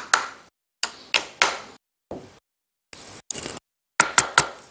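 Wooden mallet tapping the pins back into a Hatsan BTS12 12-gauge bullpup shotgun. Sharp knocks come in quick runs of two or three, with short pauses between.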